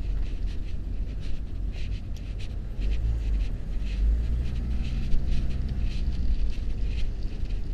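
Riding noise from a camera on a moving bicycle: wind rumbling on the microphone, with scattered clicks and rattles from the bike on the road. A car engine hums past about halfway through.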